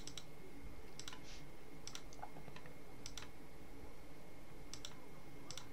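Computer mouse clicking: about six short, sharp clicks at irregular intervals, several of them doubled, over a faint steady background hum.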